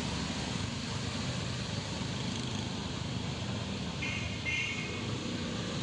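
A steady low motor hum with an even background hiss, and a short high chirping call about four seconds in.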